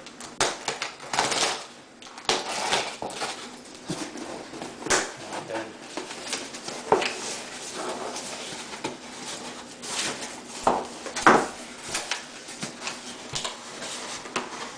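A new laptop LED screen panel being unpacked from its box: irregular rustling, scraping and handling of the packaging, with short knocks and crinkles throughout.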